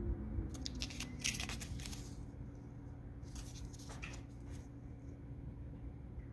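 Clear plastic coin sleeve crinkling in the fingers as a copper round is handled and turned over, in two bursts: about a second in and again around three and a half seconds in. A steady low hum runs underneath.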